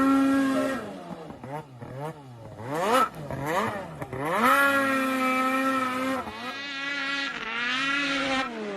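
Small high-revving engine of an over-snow machine being blipped up and down several times in quick succession, then held at high revs for a second or two, its pitch wavering near the end.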